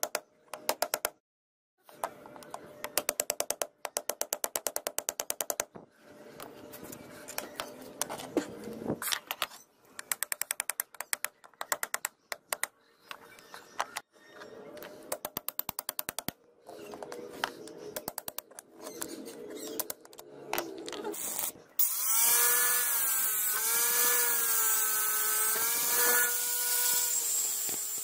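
Steel chisel worked against a knife's tang under its wooden handle scales, making quick bursts of rapid metal taps and clicks as the scales are pried off. About 22 seconds in an angle grinder starts and runs loud, its whine wavering as it is pressed into the work.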